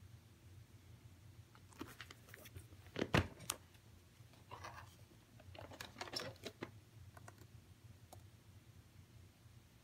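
Handling noise of a plastic VHS clamshell case being opened and the videocassette taken out. There is a cluster of sharp plastic clicks about two to three and a half seconds in, the loudest near three seconds, then rustling scrapes and a few light clicks.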